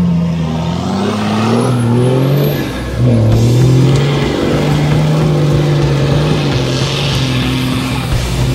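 Vehicle engine running under load and revving up and down as the vehicles drive across beach sand, heard from inside a vehicle's cabin.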